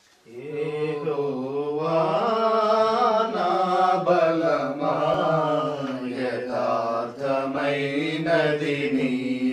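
Three men singing a hymn together in long, held notes, their voices starting about a third of a second in.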